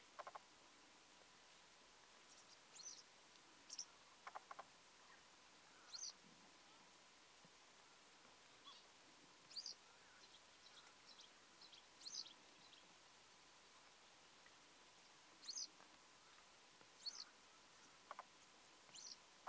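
Faint, short, high bird calls every second or two, from a black-headed yellow wagtail. A few soft clicks sound near the start, around four seconds in, and near the end.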